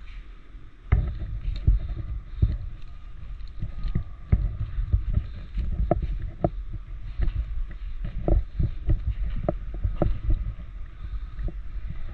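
A player's footsteps and gear knocking: irregular low thumps and short knocks, several a second, starting about a second in, over a steady low rumble.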